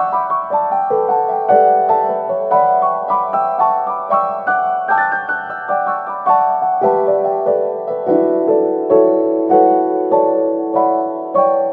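Background piano music: a gentle flowing melody of struck notes, several a second, each ringing and fading.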